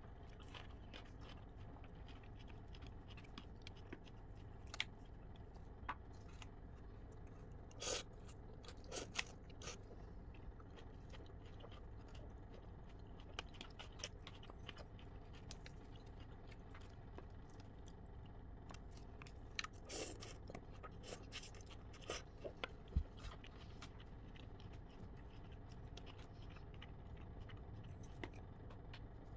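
Faint eating sounds: a person chewing noodles and vegetables, with scattered clicks and scrapes of wooden chopsticks against a clear plastic bowl, clustered about a third of the way in and again past the middle. A low steady hum runs underneath.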